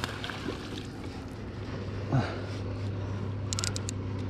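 Steady low drone of a distant engine. A short falling sound comes about two seconds in, and a few quick clicks come near the end.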